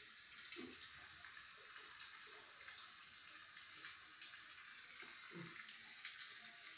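Near silence: a steady faint hiss of room tone, with a few soft low sounds about half a second in and again near the end.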